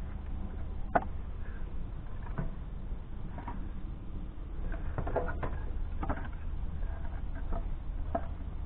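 Split firewood knocking and clunking as pieces are lifted from a trailer and set onto a stack, a knock every second or so, the sharpest about a second in, over a steady low rumble.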